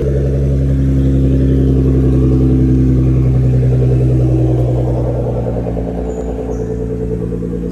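Car engine running at a loud, steady fast idle just after a cold start, a sound called nasty; the note eases down a little about five seconds in.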